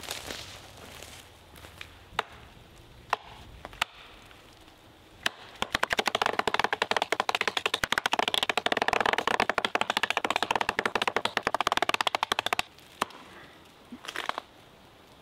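Hatchet chopping into a small tree trunk: a few separate strikes, then a long fast run of chops, many a second, for about seven seconds, then a few more strikes near the end.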